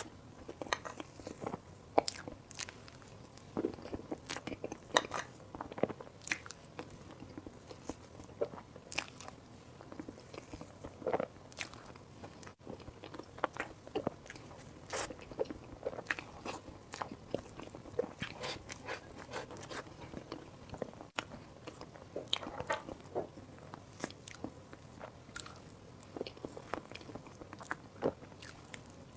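Close-miked eating sounds: a person biting and chewing food, with many irregular sharp clicks of mouth and bite noises.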